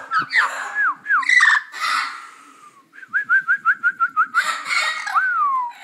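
Amazon parrot calling: rising and falling whistled notes mixed with rough squawks, then a quick run of about ten short whistles, and one long falling whistle near the end.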